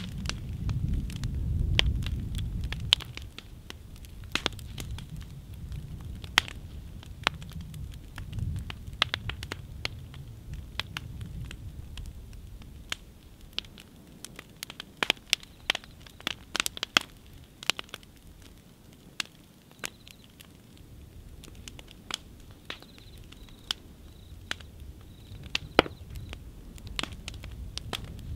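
Open fire burning a wooden frame, crackling with sharp irregular pops of burning wood. A low rumble sits under the first few seconds and returns near the end.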